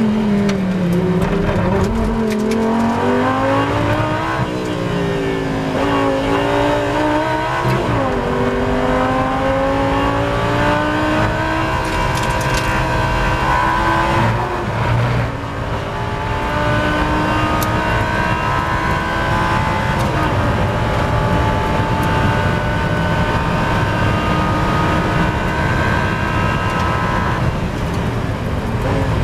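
Lamborghini Super Trofeo race car's V10 engine heard from inside the cockpit, accelerating at full throttle out of a corner and up through the gears. The pitch climbs in each gear and drops back at each upshift, about four upshifts, with each gear pulling longer and slower than the last.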